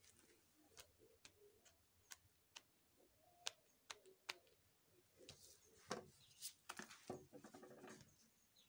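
Near silence, broken by faint scattered clicks. About five to eight seconds in comes a run of louder clicks and rustling: a rubber-gloved hand handling a cardboard sign on a glass table top.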